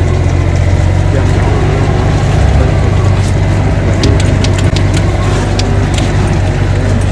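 Mini excavator's diesel engine running steadily under load, heard from the operator's seat, as the machine carries a round hay bale on its spear. A run of short sharp clicks comes a little past the middle.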